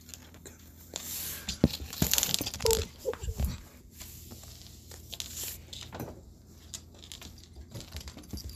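Rustling and scraping handling noise: a hand reaching along a wooden floor and rubbing against the phone. It is loudest for a couple of seconds about a second in, then settles to faint scuffs.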